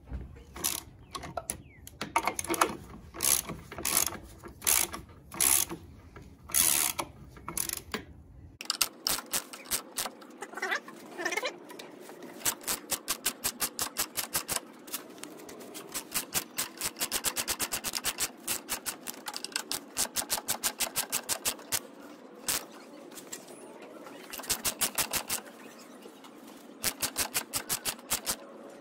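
Hand socket ratchet on a long extension clicking as it backs out the upper engine mount bolts: separate clicks about two a second at first, then from about nine seconds in, fast runs of rapid clicks as the loosened bolts spin out.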